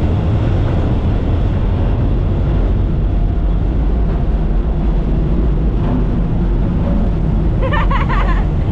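Steady low rumble of a moving vehicle's engine, unchanging throughout, with a short high-pitched voice sound near the end.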